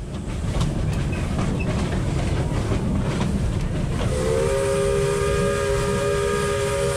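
Narrow-gauge steam locomotive 764052 (built 1949 at Chrzanów) running, with a steady rumble and clatter of its wheels on the rails. About four seconds in, its steam whistle starts blowing: a steady, held tone of several pitches sounding at once.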